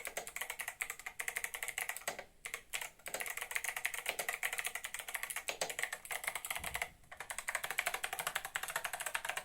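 Fast typing on an 8BitDo Retro Mechanical Keyboard with Kailh Box White clicky switches: a dense, rapid clatter of key clicks. It breaks off briefly about two and a half seconds in and again around seven seconds.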